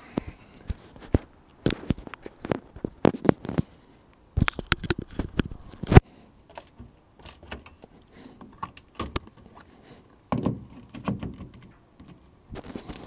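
Clicks and knocks of an EV charging cable's plastic connector being handled and plugged into an MG5 EV's charge port behind the front grille badge, in several clusters, with one sharp click about six seconds in.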